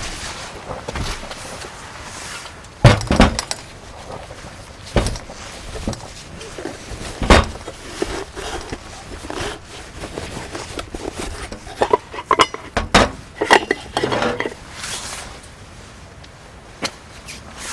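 Dishes and cooking gear being handled: scattered sharp knocks and clinks, with a run of quick clinks about twelve seconds in.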